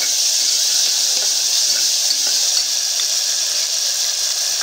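Onions and ginger-garlic paste sizzling in hot oil in an aluminium pressure cooker as they are stirred with a steel spoon: a steady hiss with a few faint ticks.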